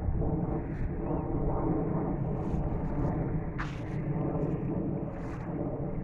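Wind blowing across the microphone with a steady, distant engine drone underneath and small waves lapping at the shore.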